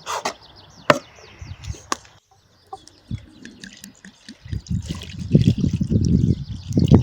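Domestic hens clucking among a few sharp knocks, then from about four and a half seconds in a steady low splashing of running liquid.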